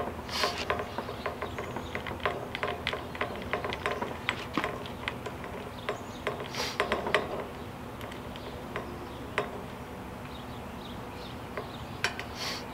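Light metallic clicking as a bolt is tightened down on a trimmer-rack bracket, in quick irregular runs of ticks that thin out after about seven seconds. A faint steady hum runs underneath.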